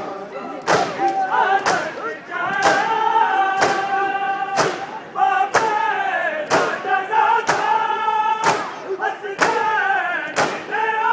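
Mourners performing matam, beating their chests with open hands in unison, making a loud slap about once a second, while a noha is sung over the beat with long held notes.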